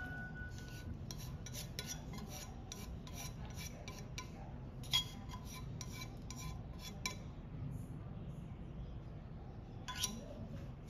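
A pot and utensil clinking and scraping against a ceramic plate as creamy noodles are slid out of the pot: a short ring at the start, then a run of light scrapes and taps, with a sharper knock about halfway through and another near the end.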